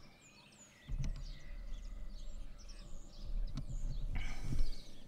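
Wind buffeting the microphone in low gusts from about a second in until near the end, with small birds chirping and whistling over it. Two faint clicks, about a second in and again later.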